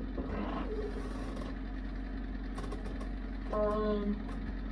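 A steady low background hum, with a few light clicks and a short hummed 'mm' from a man's voice a little before the end.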